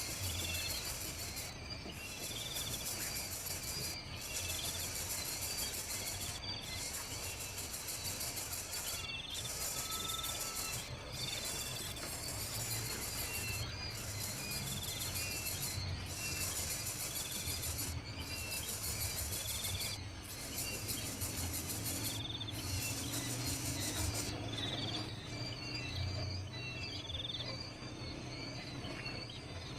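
Outdoor insect chorus, a high, even buzz in repeated bouts that stops near the end, with birds chirping now and then.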